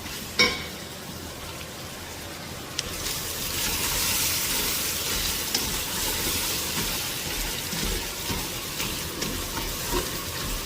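Beef and spices sizzling in hot oil in a pan as they are sautéed; the sizzle grows louder about three seconds in.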